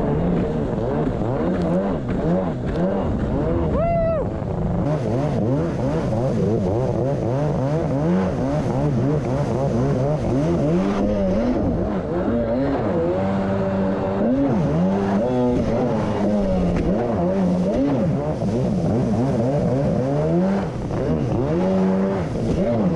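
1990 Kawasaki JS550SX stand-up jet ski's two-stroke twin, breathing through a Coffman's half-pipe exhaust, revving up and down over and over under way, over the rush of water spray.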